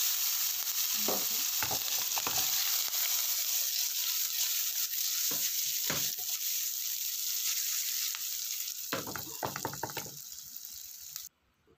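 Diced meat cubes frying in hot oil in a nonstick pan: a loud, steady sizzle that starts as they hit the oil, eases off slowly and stops abruptly near the end. A few light knocks and clatters sound through it, with a cluster of them near the end.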